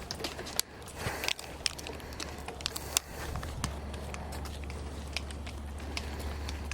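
Irregular clicks and crackles of walking and handling noise, over a low steady rumble that comes in about halfway through.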